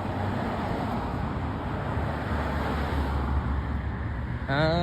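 Road traffic at a busy intersection: cars passing, with one vehicle's low engine rumble swelling in the middle and fading again.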